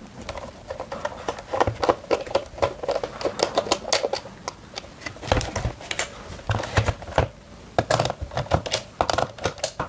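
Rapid, irregular small clicks and scrapes of a precision Torx T10 screwdriver turning screws out of a plastic controller case.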